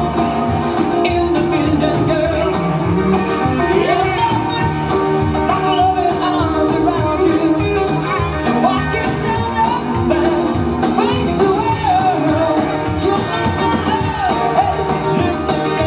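Live band music with a lead singing voice over a steady drum beat.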